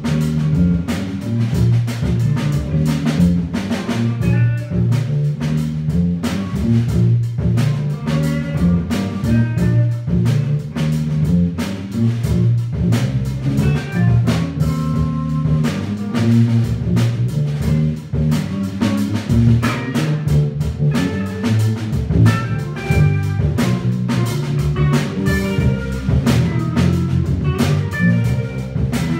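A live trio of electric bass, electric guitar and drum kit playing a funk tune, the bass line the loudest part, with guitar notes and a steady drum beat over it.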